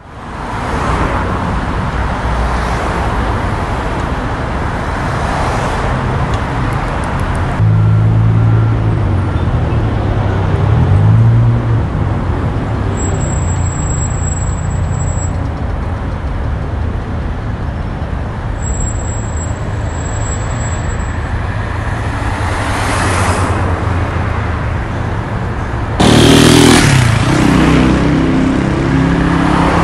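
Street traffic: cars passing over a steady road noise, with a heavier engine running low for a few seconds about a quarter of the way in and a louder vehicle passing near the end.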